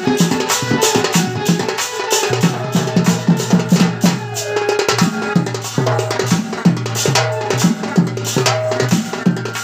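Folk dance music led by a two-headed dhol beaten in a quick, steady rhythm, with sharp strikes and a melodic instrument playing held notes above the drum.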